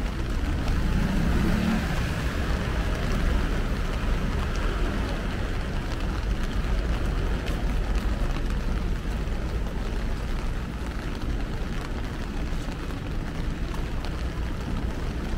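Steady rush of heavy rain, with a constant low rumble underneath.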